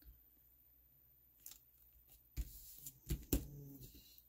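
Light handling of cardstock strips and a plastic glue bottle on a craft mat: a few sharp clicks and taps with some paper rustle, starting about a second and a half in.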